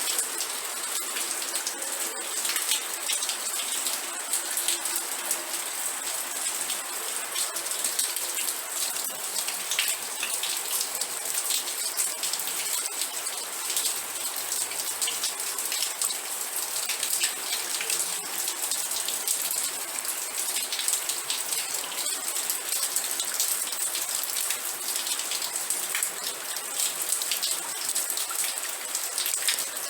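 Steady rain falling, a dense, even patter of countless drops striking a surface.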